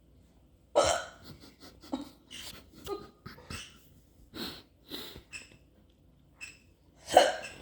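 A person hiccupping again and again, short sharp hiccups about half a second to a second apart with breathing between them. The strongest come about a second in and near the end.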